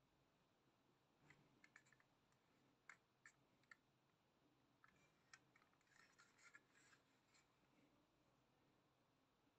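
Near silence with faint, scattered clicks and light scratches from a Majorette toy coach being turned over in the hand, fingers and the small plastic-and-metal model knocking and rubbing.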